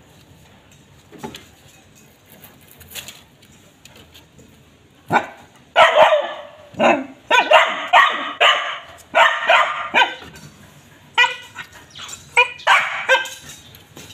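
Puppy barking at a snake: about five seconds in it starts a run of sharp, repeated yaps in quick bouts that go on until near the end.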